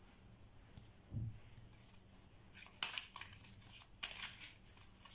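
Tarot cards being handled and shuffled: a soft low bump about a second in, then from about halfway a run of quick, papery card flicks and rustles.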